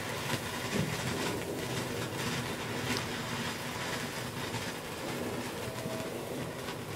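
Black Cat Bellagio Fountain ground fountain firework burning: a steady rushing hiss of spraying sparks, densely peppered with small crackles.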